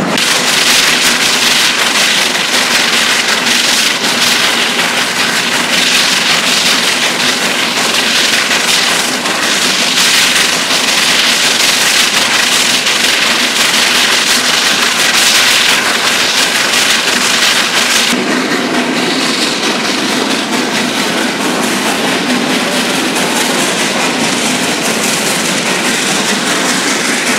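Steam-hauled train running, a steady loud rushing noise of the locomotive and cars on the track. Its character changes abruptly about two-thirds of the way through.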